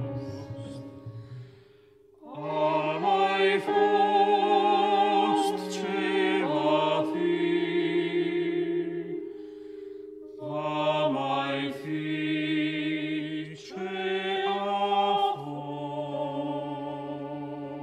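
Vocal ensemble singing contemporary classical music in sustained, chant-like chords with wavering vibrato. The sound falls almost silent about two seconds in, then the voices re-enter and move through held chords that shift every few seconds.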